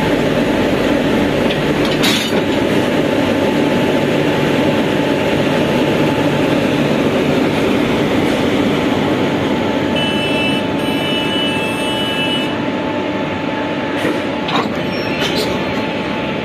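WAG-7 electric locomotive running with a loud, steady hum from its blowers as it creeps up to a goods wagon for coupling. A high squeal lasts about two seconds partway through, and a few sharp knocks come near the end as the couplers close.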